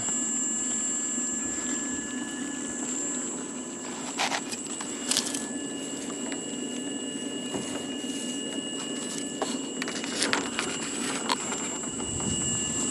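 Rotor-sail cylinder spinning on its electric drive base, running smoothly: a steady hum with a constant high whine, and a few short clicks.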